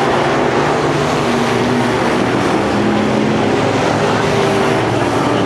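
Several dirt-track race car engines running hard around the oval, their pitch rising and falling as the cars pass, over a loud, steady wash of noise.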